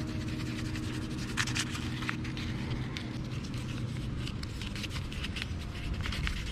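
Sandpaper rubbing by hand over a small molded mount piece, in a few short scratchy strokes, to smooth its surface before painting.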